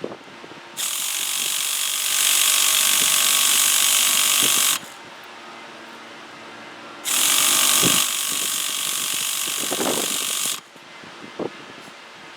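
Electric starter spinning the rebuilt nitro engine of a Traxxas Revo 3.3 RC truck in two long bursts of about four seconds each, a high whirring whine. The engine does not catch; the owner later traces the failure to start to fuel lines fitted backwards.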